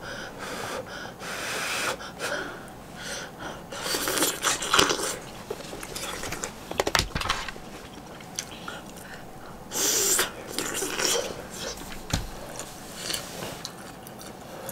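Close-up eating sounds: fish cake and udon being chewed, with several loud breathy puffs and slurps, the strongest about four and ten seconds in.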